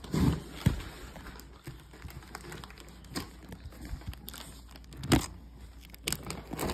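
Cardboard shipping box being handled, with crinkling and crackling of packaging and a few sharp knocks, the loudest about five seconds in.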